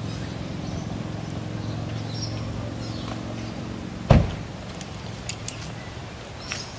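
A car's engine running steadily, then a single loud thump about four seconds in, followed by a few light clicks.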